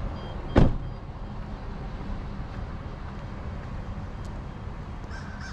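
A single sharp, loud thump about half a second in, over the steady low rumble of an idling car.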